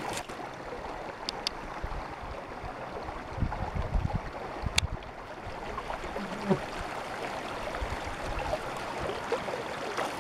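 Steady rushing of a flowing river, with a few light clicks and some low bumps about four seconds in.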